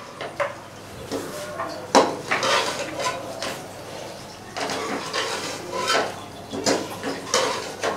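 Metal slotted spatula scraping and clinking against a metal karahi as chicken pieces are stirred, in irregular strokes, the sharpest about two seconds in and twice near the end.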